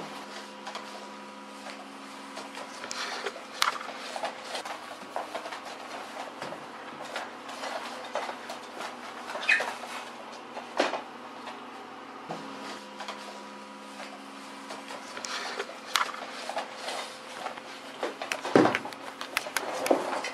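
Husky puppies playing tug with a rope toy: small yips and scuffles, paws and claws pattering and scraping on a hard floor, over a steady faint hum. A louder knock comes near the end.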